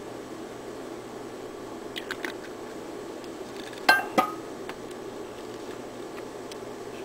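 Glass bottle being handled: a few light clicks of its cap about two seconds in, then two sharp glass clinks about a third of a second apart near the middle.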